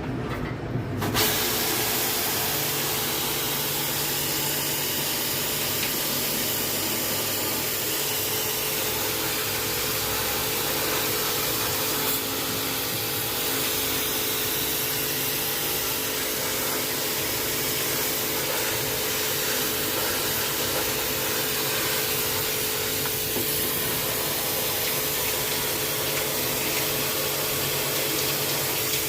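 Pressure washer spraying water in a steady hissing jet, with a constant motor tone under it; it starts about a second in.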